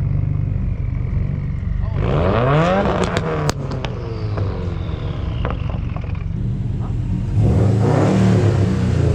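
Subaru car engine revving over a steady low rumble: the pitch climbs about two seconds in, with a few sharp clicks, then falls away. The engine surges loudly again near the end.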